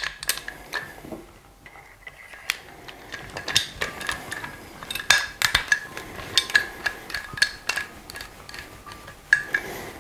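Irregular small metallic clicks and clinks, some with a light ring, as a small hand tool works on the trigger group while it is fitted into a Sako TRG M10 rifle's receiver.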